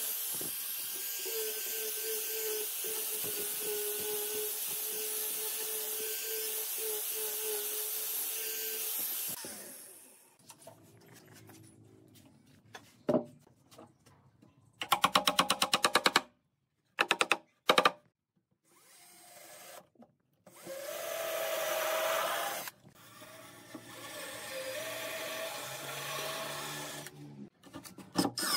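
Angle grinder with a sanding disc sanding a wooden part, a steady loud whir that stops about nine seconds in. Later, a quick run of sharp knocks from a mallet fitting a wooden post, then a cordless drill twice driving screws into wood in short runs.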